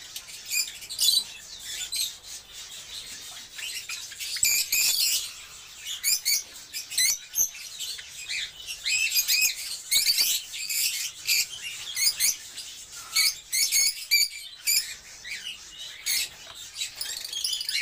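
Peach-faced lovebirds chirping: quick, high, shrill chirps in runs that come and go, with short pauses between.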